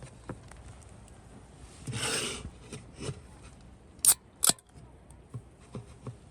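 Scissors handled and snipping: a short rustle, then two sharp snips about half a second apart, with a few lighter clicks around them.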